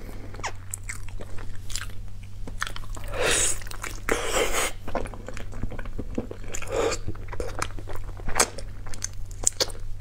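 Close-miked chewing and mouth smacking as a person eats braised pig's trotters, irregular wet clicks with louder bursts about three to five seconds in and again near seven seconds. A low steady hum sits underneath.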